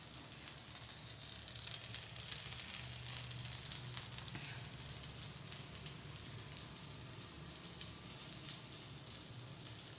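Crumb-coated bread cutlets shallow-frying in hot oil in a pan, a steady sizzle with fine crackling.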